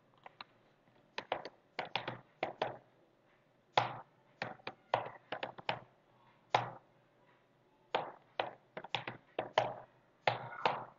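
Computer keyboard being typed on: irregular single keystrokes and short quick runs of key clicks, with pauses of up to about a second between them.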